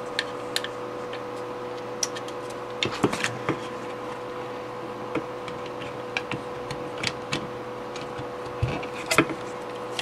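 Scattered light clicks and taps of plastic parts being handled, a 3D-printed dock and charging cable pushed into place, over a steady hum. The clicks bunch up around three seconds in and again near the end.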